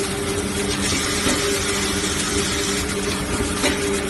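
Automatic band saw cutting machine for maxi tissue rolls running, a steady mechanical hum under a constant hiss, with two short clicks, one near the end.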